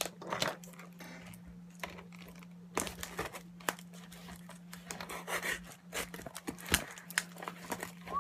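Packaging being unwrapped by hand: irregular crinkling and rustling with sharper crackles, over a steady low hum.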